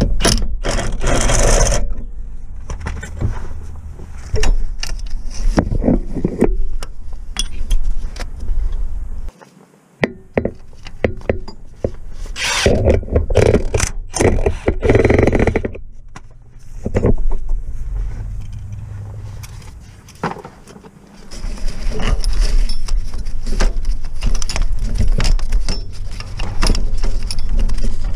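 Hand tools working a bolt on a Ford Focus gearbox bellhousing: a socket on a long extension bar fitted and turned, with irregular metal clinks, clicks and scraping.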